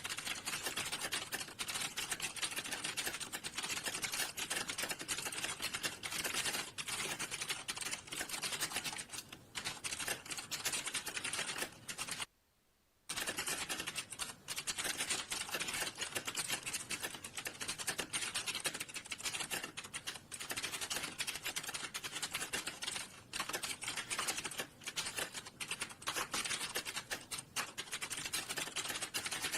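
Fast, continuous typing on a computer keyboard, a dense run of keystrokes that stops dead for under a second about twelve seconds in and then carries on.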